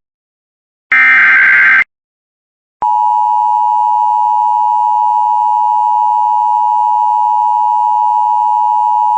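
Emergency Alert System SAME header: a buzzing digital data burst of about a second, starting about a second in. After a second of silence the EAS two-tone attention signal starts about three seconds in and holds steady.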